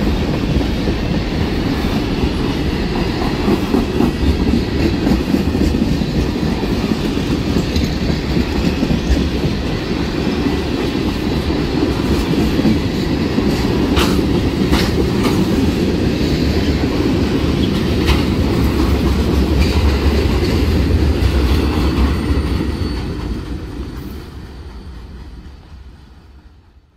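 Freight train tank cars rolling past a grade crossing: a steady rumble of steel wheels on rail, with a few sharp clicks from the wheels about halfway through. The sound dies away near the end.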